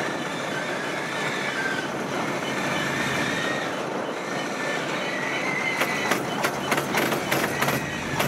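Kubota DC70 combine harvester's diesel engine and threshing gear running steadily while its header is choked with rice straw, with a high wavering whine over the running. From about six seconds in, a rapid series of sharp clicks and clacks.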